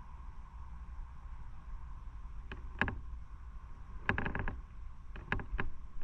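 Steady low rumble of a motorcycle ride, broken by a few short sharp knocks and rattles: two about halfway through, a quick cluster a second later, and two or three more near the end.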